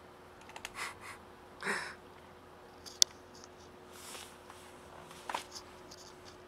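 A cat eating dry kibble from a plastic tub: a few scattered crunches and rustles, with one sharp click about three seconds in. A steady faint hum runs underneath.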